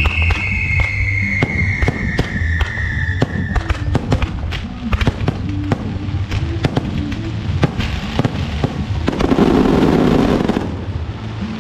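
Fireworks and firecrackers going off in a rapid run of sharp cracks. A whistle falls steadily in pitch over the first few seconds, and about nine seconds in comes a dense burst of crackling lasting a second and a half.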